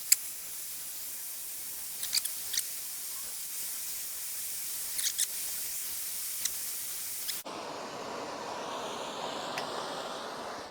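Soldering torch hissing steadily as it heats a heater-core seam, with a few sharp crackles. About seven seconds in, the hiss changes to a fuller, lower rush.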